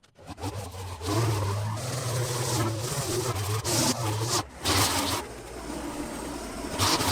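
Small gas engine of a pressure washer running steadily, with the hiss of the water spray swelling and dropping off several times as the trigger is worked.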